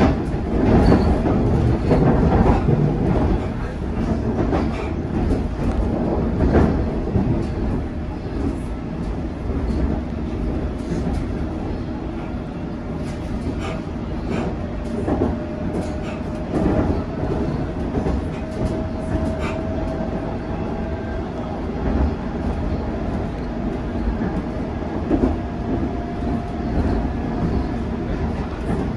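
Inside a London Underground Metropolitan line S8 stock carriage running at speed: a steady rumble of wheels on rail with scattered clicks over rail joints. In the second half there is a faint whine that rises slightly in pitch.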